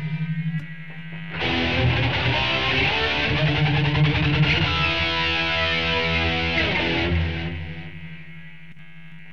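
Ibanez RG370DX electric guitar played through a Line 6 POD 2.0 on a delay/flanger preset. After a short dip, a chord struck about a second and a half in rings out with the flanger's sweeping whoosh, then fades over the last two seconds.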